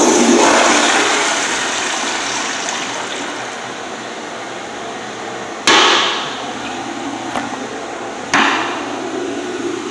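Toilet flushing three times. Each flush starts with a sharp click and a sudden rush of water that fades over a few seconds: the first right at the start, the next about six seconds in, the last under three seconds after that.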